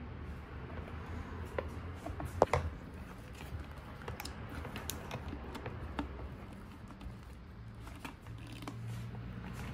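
Small clicks and handling noises from hands working on a plastic headlight cowl and pushing its wiring connector and rubber bulb boot into place, with one sharper click about two and a half seconds in.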